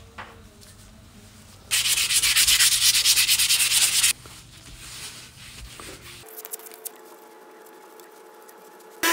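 Sanding a part to prepare it for primer: a loud, scratchy rubbing of about two and a half seconds starting near two seconds in, followed by quiet.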